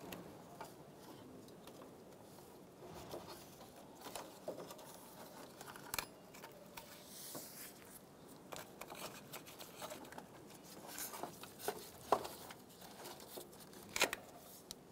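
Gloved hands threading a ribbed rubber serpentine belt over the engine's pulleys: faint scattered taps, rubs and rustles, with a few sharper knocks, the loudest near the end.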